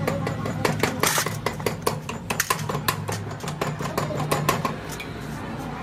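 Small metal parts of a dismantled air brake pedal valve clinking and tapping against each other and the aluminium pan as they are handled, with a steady low hum underneath.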